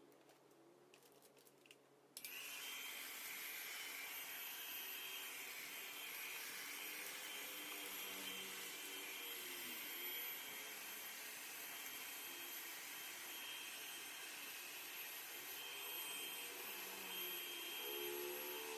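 Hairdryer switched on about two seconds in and then running steadily, a hissing blow with a faint high whine, used to shrink a plastic seal into place.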